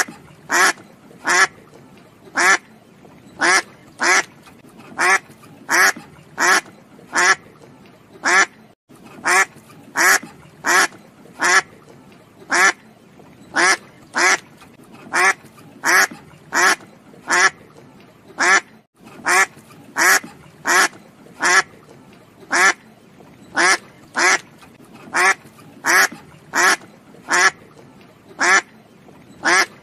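Duck quacking: short quacks, often in pairs, repeated steadily throughout. A short recording is looped about every ten seconds.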